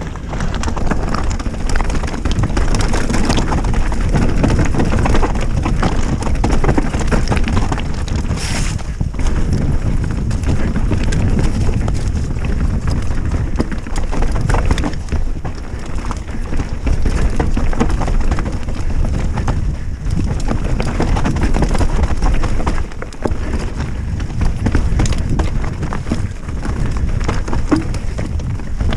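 Specialized Stumpjumper mountain bike riding fast down a dirt singletrack: tyres rumbling over dirt and roots, with the chain and frame rattling and clattering over bumps, and wind on the microphone.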